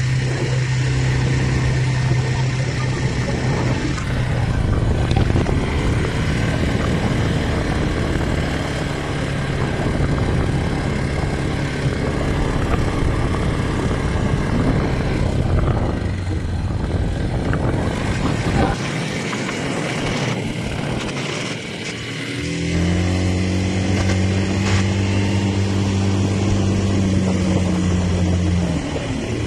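An ATV (quad bike) engine running while the bike is ridden across wet sand, heard from the rider's seat, with a steady rushing noise over it. About two-thirds of the way through, the engine eases off briefly, then picks up again to a steady, higher hum.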